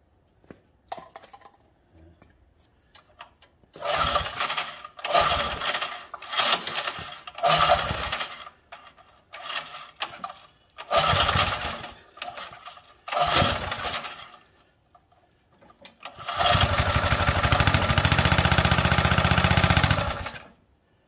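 Troy-Bilt sickle mower's small engine firing in short bursts of about a second, catching and dying seven times, then running steadily for about four seconds before cutting off suddenly. It cuts in and out with its spark plug boot barely on.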